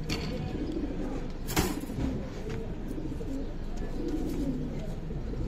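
Domestic pigeons cooing, a repeated low wavering coo. A single sharp knock about a second and a half in is the loudest sound.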